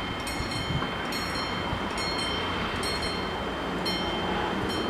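Level crossing bells ringing: several electric bells striking out of step, a stroke or two each second, over a steady low rumble.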